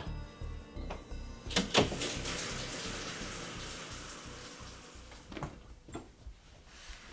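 A wooden door swings shut with two sharp knocks about a second and a half in, then a shower runs with a steady hiss of water that slowly fades away; a couple of soft knocks come later.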